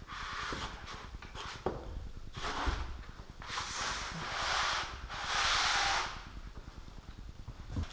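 A speaker cabinet with a textured paint finish, rubbing and scraping against its polystyrene foam packing insert as it is tipped over and set back down. There are a few separate scuffs, the loudest two a little past the middle.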